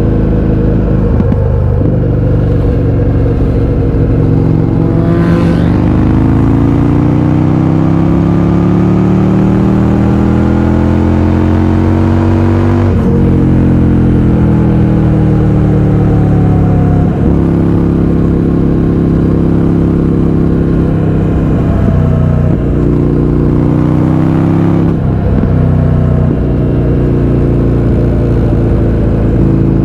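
Indian FTR 1200's V-twin engine through an Akrapovič exhaust with the baffles removed, under way and pulling hard. The engine climbs steadily in pitch for several seconds, drops sharply on a gear change about 13 seconds in, and dips briefly a few more times later.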